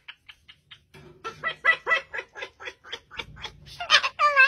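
Yellow-headed Amazon parrot imitating laughter: a run of short 'ha' notes, soft and sparse at first, then louder and quicker from about a second in, turning into wavering drawn-out cackles near the end.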